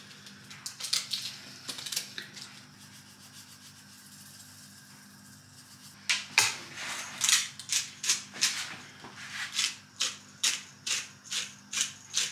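Soup being seasoned by hand: a few scattered kitchen sounds, then from about six seconds in a run of short gritty rubbing strokes, about two a second.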